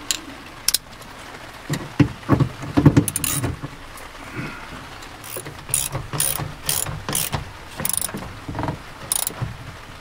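Ratchet wrench clicking in short strokes while tightening the bolt of a seat belt retractor. A few loud metal knocks come first, then quick clicking bursts about twice a second.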